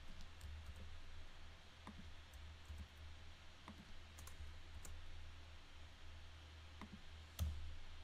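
Faint, irregular clicks of a computer mouse and keyboard as text is selected and moved in an editor, with one louder click near the end. A low steady hum lies under them.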